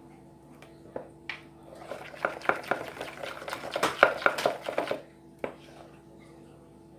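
A plastic spoon stirring a wet slime mixture in a plastic mixing bowl, knocking and scraping against the bowl's sides: a couple of clicks about a second in, then a busy run of knocks and scrapes from about two to five seconds. A faint steady hum runs underneath.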